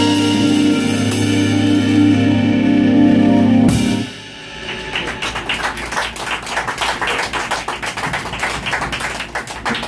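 A small jazz band of saxophone, archtop electric guitar and drums holds a final chord, which cuts off about four seconds in. A small audience then claps in quick, scattered claps.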